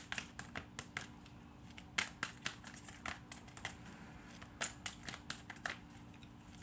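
A deck of tarot cards being shuffled by hand: irregular light clicks and snaps, a few every second.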